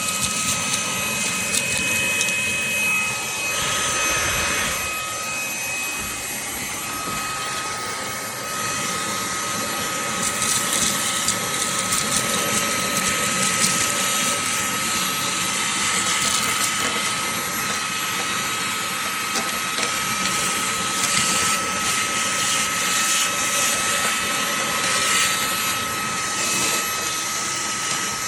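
Fanttik V8 Apex cordless handheld vacuum running, its motor giving a steady high whine with scattered crackles. The whine wavers for a few seconds early on, then holds steady.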